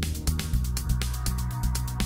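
Electronic background music with a steady fast beat and a deep bass line.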